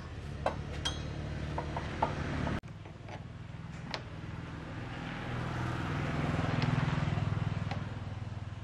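Steady low hum of a motor vehicle engine running nearby, swelling and fading again a little past halfway, with a few light metallic clinks from fitting a motorcycle front wheel and tightening its axle nut with a wrench.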